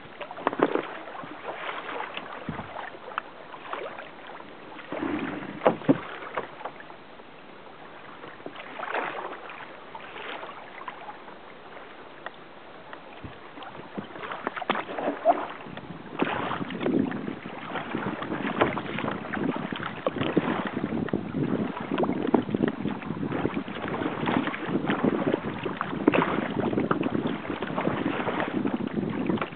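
Water splashing and slapping irregularly against the hull of a sail-assisted kayak moving through small waves, with wind on the microphone. The splashing grows louder and busier about halfway through.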